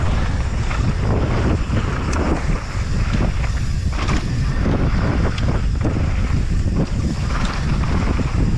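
Wind buffeting the microphone of a helmet camera on a downhill mountain bike ridden fast over loose, dusty dirt, with frequent knocks and clatters from the bike over bumps and rocks.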